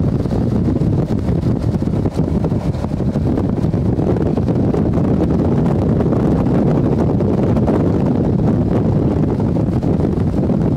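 Steady wind rushing over the microphone mixed with the low rumble of a vehicle on the highway.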